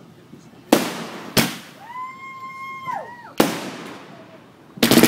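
Consumer fireworks going off: three sharp bangs a second or two apart, then a rapid cluster of crackling reports near the end. Between the second and third bangs, a high tone rises, holds and falls away.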